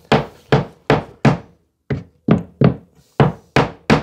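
Hammer tapping a stair riser up into the groove of the staircase string: a run of sharp knocks on wood, about three a second, with a short pause a little before halfway.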